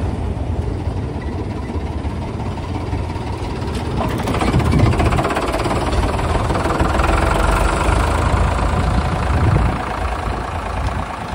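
Ford 3600 tractor's three-cylinder diesel engine running, growing louder about halfway through and easing off slightly near the end.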